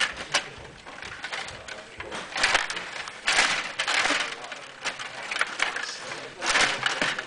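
Stiga Play Off table hockey game in play: the rods sliding and spinning and the plastic players and puck clacking against each other and the boards, in irregular bursts of rattling clatter.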